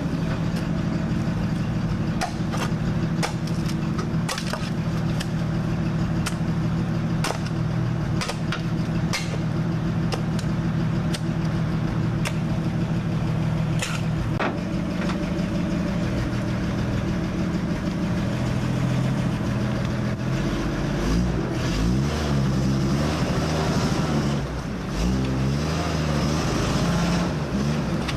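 WWII-era US Army truck engine idling steadily, with a shovel scraping and clinking into stony mud through the first half. In the last third the engine revs rise and fall repeatedly as the bogged-down truck tries to work its way out.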